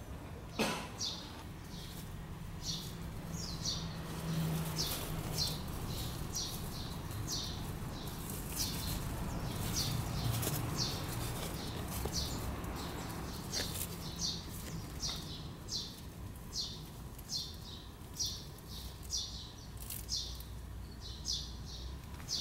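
A small bird chirping over and over in short, high notes, about two a second, over a low steady background hum.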